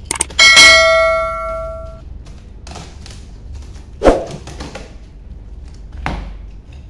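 A metal object clangs and rings for about a second and a half. Then a cardboard box is pulled open, with a sharp rip about four seconds in and softer tearing of packing tape from the cardboard flaps later.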